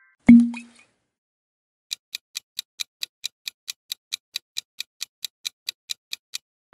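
Countdown-timer sound effect: a clock ticking evenly, about four and a half ticks a second, for about four and a half seconds. It is preceded near the start by a single short, low thud.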